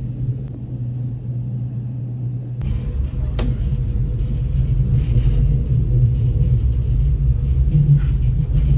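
Rhaetian Railway passenger train rumbling along the track, heard from inside the carriage. The rumble grows heavier about two and a half seconds in, with one sharp click about a second later.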